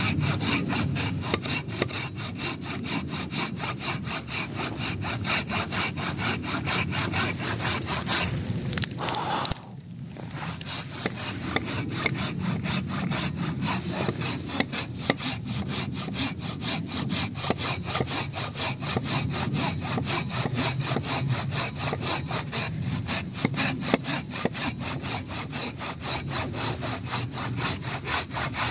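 Silky BigBoy 360 mm folding hand saw cutting through a log, in steady back-and-forth strokes with a brief pause about ten seconds in.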